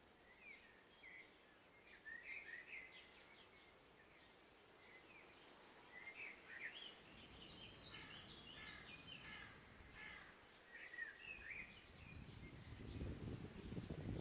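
Faint chorus of small songbirds chirping and trilling in a forest. A low rumble comes in about halfway through and grows louder near the end.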